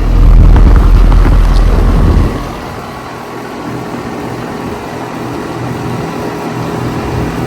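2007 Carrier central air conditioner condensing unit running just after start-up, its scroll compressor and newly replaced condenser fan motor giving a steady hum. A heavy low rumble fills the first two seconds, then drops away.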